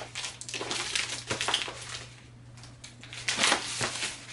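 Crinkling and rustling of a mail package's wrapping as it is picked up and handled, with a louder rustle about three and a half seconds in.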